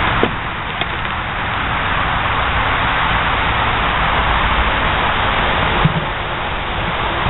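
Steady rushing noise on the microphone, with a few sharp knocks of plywood practice swords and homemade shields striking: one about a quarter second in, a lighter one just under a second in, and a louder one near six seconds.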